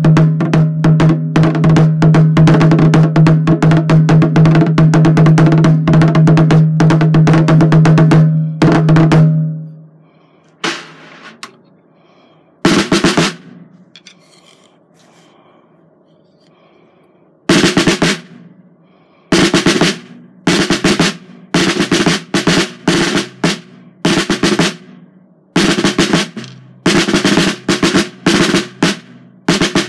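Drum struck with two wooden drumsticks: a fast continuous roll with the head ringing under it for the first eight seconds or so, then a few single hits and a pause, then short bursts of strokes about every second or so.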